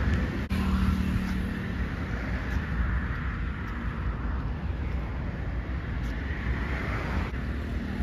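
A road vehicle on the move: a steady low rumble of engine and road noise, with a low hum that comes in about half a second in and fades a couple of seconds later.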